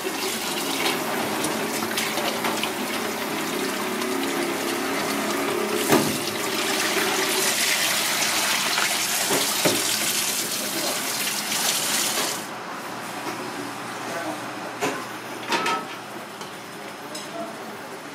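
Kitchen tap running into a bowl while goose barnacles are rinsed and rubbed by hand, their shells knocking together. About twelve seconds in the water sound drops to a quieter flow, with a couple of knocks near the end.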